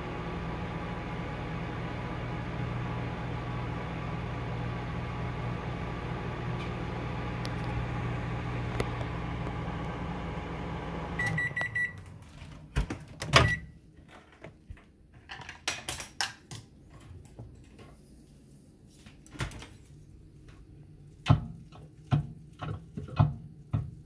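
Hamilton Beach microwave oven running with a steady hum, which stops about eleven seconds in with a short run of high beeps as the timer ends. After that come scattered sharp clicks and knocks as the door is opened and chopsticks stir instant noodles in a ceramic bowl.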